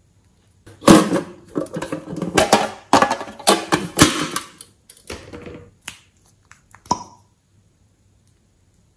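A metal tin box being handled and opened: a dense run of clattering and clicking from its lid and latch, then a few separate clicks.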